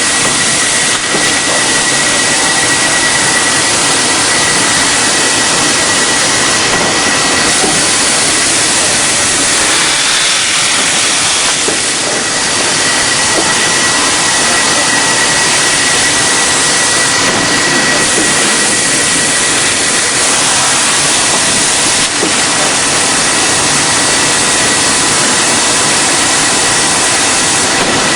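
Rotor-sleeve machine for vacuum-cleaner motors running: a steady, loud rushing noise with a thin, constant high whine and no breaks.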